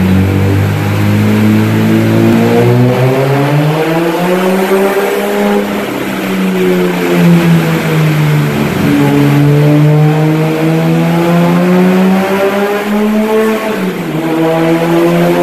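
Nissan Skyline R34 GT-R's turbocharged RB26 straight-six under load on a dynamometer. The engine note climbs for about five seconds, falls back until about nine seconds, climbs again, dips suddenly near the end and starts climbing once more.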